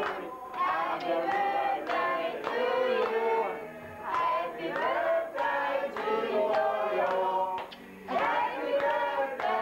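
Several people singing a birthday song together in held notes and short phrases, with some hand clapping.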